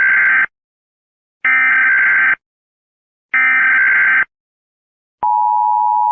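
Emergency Alert System SAME header: three harsh digital data bursts, each just under a second long and about a second apart, marking the start of a new alert. About five seconds in, the steady two-tone EAS attention signal begins.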